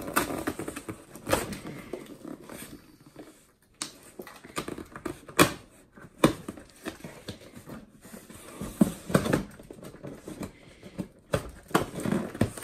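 Packing tape on a cardboard box being slit with a small keychain knife and pulled at: irregular sharp clicks, scrapes and crackles of tape and cardboard.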